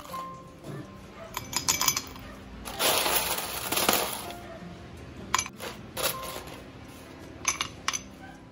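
Ice cubes dropped into a glass goblet, clinking sharply against the glass and each other several times, with a longer rattling stretch of ice about three seconds in.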